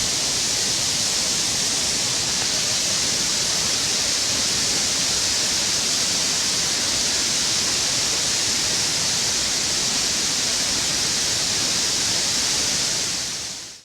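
Waterfall: a steady rush of falling water, fading out near the end.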